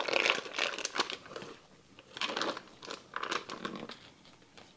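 Foil wrapper of a softened cream cheese brick crinkling in several short bursts as it is peeled back and the cheese is scraped out with a spatula.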